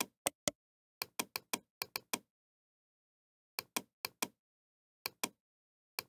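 Computer mouse button clicking repeatedly, each click a sharp press-and-release pair, in two flurries with a pause of about a second and a half in the middle.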